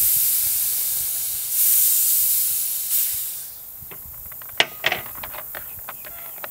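Leftover pressurised CO2 hissing loudly out of the gas line of a homemade carbonator rig as it is bled off after the tank and regulator are shut, surging again about a second and a half in and stopping after about three and a half seconds. Then a few light clicks and knocks as a drinking glass is moved on the table.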